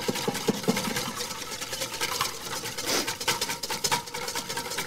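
Wire whisk beating egg yolks and white wine in a stainless steel bowl over a steam bath, its wires clicking and scraping rapidly and steadily against the metal as the hollandaise base is whipped.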